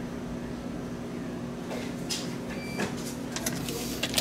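Paper lottery tickets being handed over and handled at a shop counter, with clicks and rustling in the second half and one short electronic beep. A steady low hum runs underneath.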